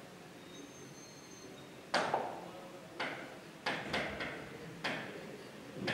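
Marker pen writing on a whiteboard: a series of about six short, sharp taps and scratching strokes as letters are written, spaced unevenly through the second half.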